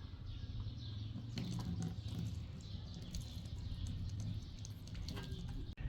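Small birds chirping, many short falling chirps over a steady low hum.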